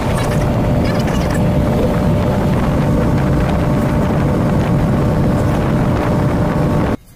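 Steady engine and road noise inside a moving vehicle at highway speed: a loud low rumble with a constant hum over it. It cuts off suddenly just before the end.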